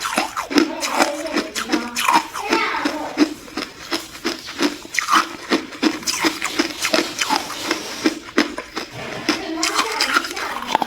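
Hard ice being bitten and chewed: a quick, irregular run of sharp crunches.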